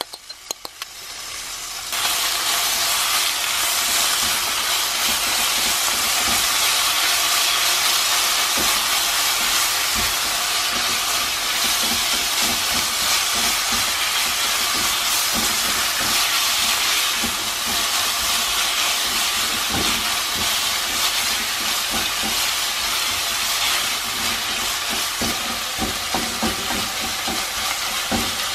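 Minced seasoned pork and sliced onions sizzling loudly in a hot nonstick frying pan. The sizzle jumps up sharply about two seconds in and holds steady, with the scrapes and taps of a silicone spatula stirring the meat.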